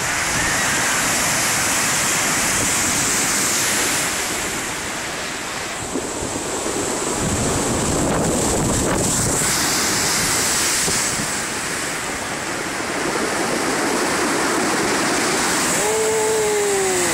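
Storm waves on Lake Superior surging and breaking against the shore in a blizzard, a continuous rush that swells about halfway through, with gusting wind on the phone's microphone.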